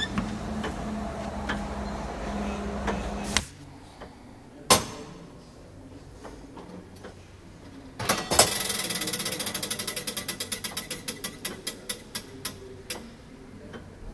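Hand-wound tower clock mechanism being worked: a single sharp click, then a fast run of metallic clicks that slows down and stops after about five seconds. Earlier, a steady hum cuts off about three and a half seconds in.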